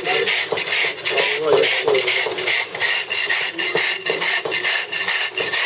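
A mason's steel drag scraping over Bath stone in quick repeated strokes, dressing a chamfer down to its marked line.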